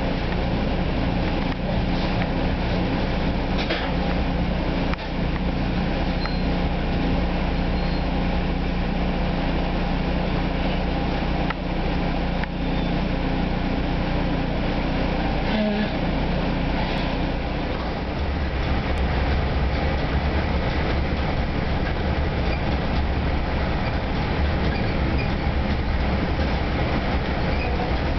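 Steady interior running noise of an NJ Transit bi-level commuter coach travelling at speed: wheels on the rails and the car's hum. A deeper low hum grows stronger about two-thirds of the way through.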